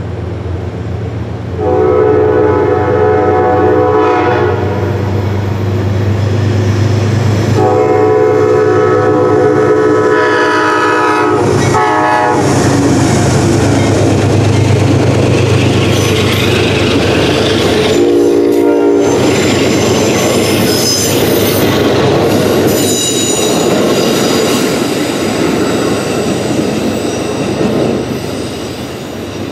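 Amtrak P32AC-DM diesel locomotive's air horn sounding the grade-crossing signal: two long blasts, a short one and a last blast. Then the passenger train runs over the crossing with a steady rumble and clatter of wheels on rail, fading near the end.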